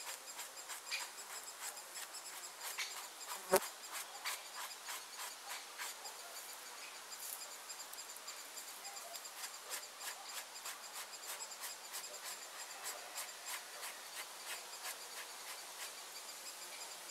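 Knife blade scraping a wet hide stretched over a log, in short irregular strokes a few a second, as it is cleaned of leftover membrane before vegetable tanning. Insects chirr steadily in the background, and there is one sharper knock about three and a half seconds in.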